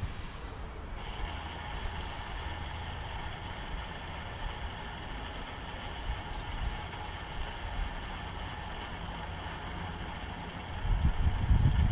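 Small electric gear motor of a heliostat solar tracker driving the mirror's vertical axis under relay control, turning it toward the target to cancel the tracking error. It starts about a second in and runs with a steady whine. A low rumble comes up near the end.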